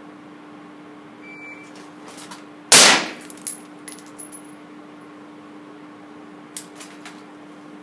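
A faint shot-timer beep, then a single suppressed rifle shot about three seconds in that rings through the indoor range. A few lighter clicks and knocks of the rifle and gear follow, over a steady low hum.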